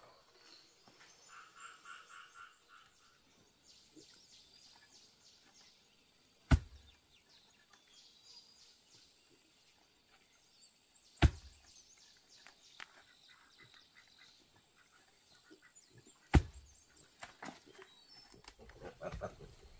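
Three loud, sharp knocks about five seconds apart, with softer knocks and rustling near the end, over faint chirping animal calls and a thin steady high-pitched drone.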